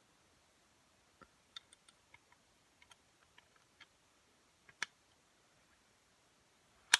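Small scattered clicks and ticks of a plastic-handled folding knife with a ferro rod and whistle being handled, then a louder click and, near the end, one sharp loud click.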